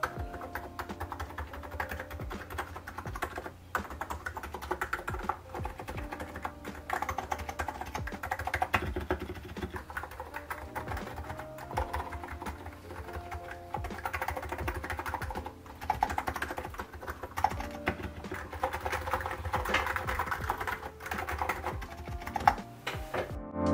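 Continuous fast typing on a NiZ Plum Atom 68 keyboard with electro-capacitive switches and Drop MT3 Camillo keycaps: a dense, irregular run of soft keystrokes.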